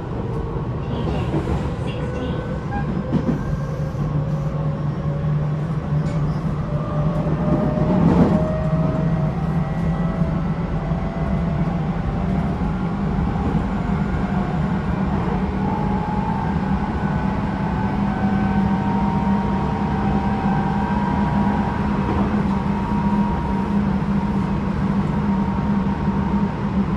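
Tobu 9050 series motor car running under Toyo GTO-VVVF inverter control: wheel and running-gear rumble with inverter and traction-motor whine tones that rise slowly as the train picks up speed. There is a brief louder rush about eight seconds in.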